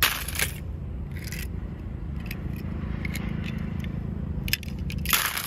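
Die-cast toy cars clattering and scraping against each other and a plastic basket as they are handled, in short bursts right at the start, about a second in and near the end, with a few light clicks between.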